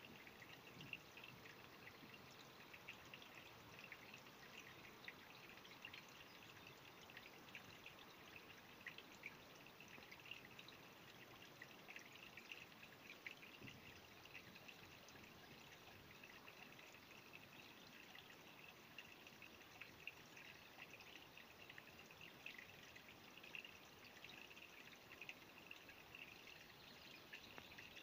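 Faint, steady trickling and babbling of a shallow woodland creek, with small drips and plops flickering through it.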